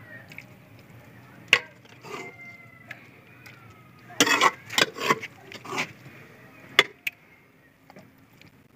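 Metal spoon knocking and scraping against a cooking pot as cooked saag is scooped out into a small aluminium pot: scattered sharp clinks, several close together around the middle.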